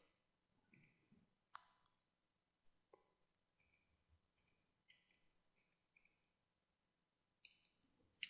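Faint, irregular clicks of a computer mouse and keyboard, about a dozen scattered through the quiet, as mesh parts are selected and separated.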